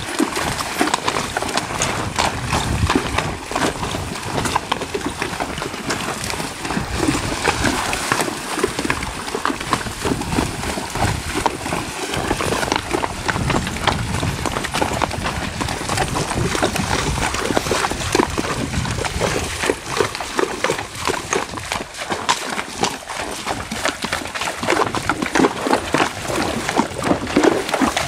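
Tennessee Walking Horses wading through a shallow, rocky stream: hooves splashing through the water and knocking on stream-bed stones in an irregular, continuous patter.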